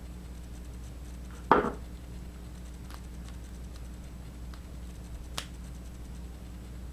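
Small hard parts or tools handled on a workbench: one sharp clack about a second and a half in, then a few faint light clicks, over a steady low hum.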